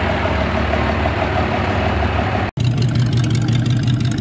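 Turbocharged diesel engine of a rat rod flatbed truck running steadily as the truck rolls by. About two and a half seconds in it cuts abruptly to a hot rod pickup's engine, a different, lower-pitched note with fast, even pulses.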